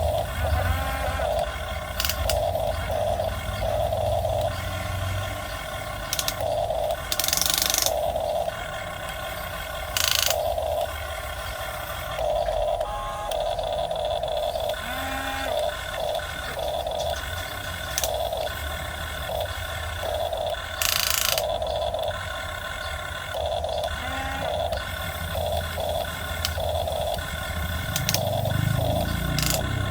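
Miniature RC hydraulic excavator at work: its pump whines in short, irregular stop-start bursts as the controls are worked, with a few brief hissing scrapes.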